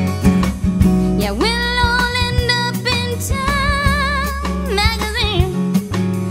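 Background song: a singer with vibrato over strummed guitar and a steady bass line, the voice coming in about a second in.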